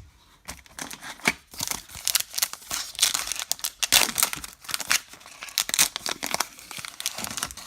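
Baseball card pack wrapper being torn open and crinkled in the hands, a dense run of irregular crackling and rustling with single crackles before it.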